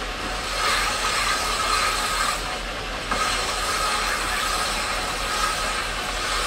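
Horizontal lapidary lap wheel spinning in water while a stone is pressed and worked against it by hand: a steady wet grinding hiss over a constant low motor hum. The grinding eases briefly about three seconds in, then picks up again.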